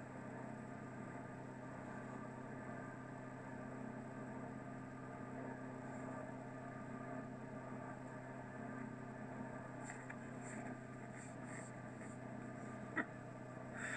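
Steady engine and road hum inside the cabin of the TRL DigiCar driving simulator, with a few light clicks in the last few seconds.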